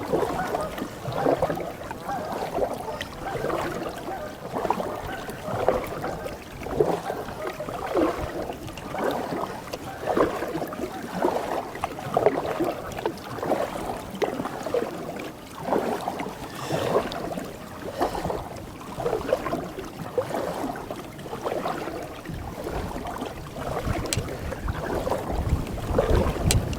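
Canoe paddle strokes in river water, a splash and swirl about once a second, with the canoe moving along.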